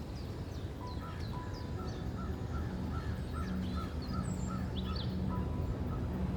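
Wild birds chirping and calling over a low outdoor rumble, with a run of short evenly spaced notes, about two a second, through the middle. A soft, steady low music drone comes in about halfway.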